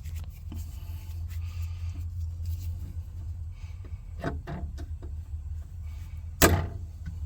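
Equipment being handled during setup for pressurizing the system with nitrogen: a steady low rumble, a few light knocks about four seconds in, and one loud knock near the end.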